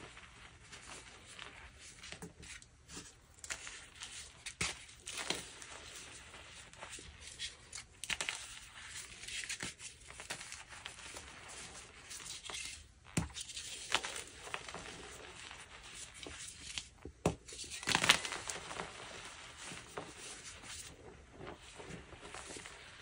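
BSN gym chalk being crushed and crumbled by hand: dry crunching and crackling in irregular bursts, with a few sharp snaps and the loudest crunch about eighteen seconds in.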